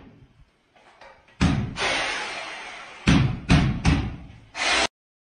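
Heavy bangs: one about a second and a half in that dies away slowly, then four more in quick succession from about three seconds in. The sound then cuts off abruptly.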